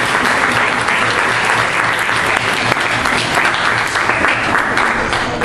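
Audience applauding, a steady dense clapping that begins to die away near the end.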